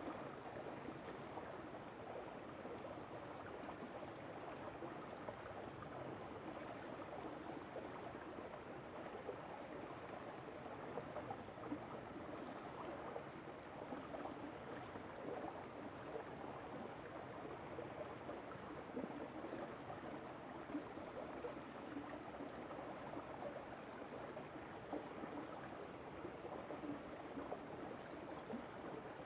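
River water flowing over stones: a steady, fairly faint babble with small gurgles flickering through it.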